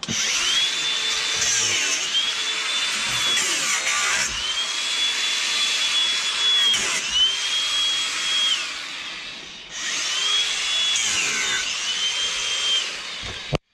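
Angle grinder cutting into an old fence post. The high motor whine sags each time the disc bites and picks up again, about six times, with a short break about two-thirds through, and it stops abruptly just before the end.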